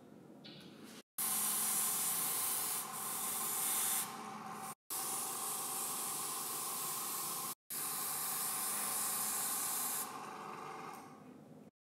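Airbrush spraying body paint: a steady hiss of compressed air with a faint whine underneath, starting about a second in and cutting off abruptly and resuming a few times.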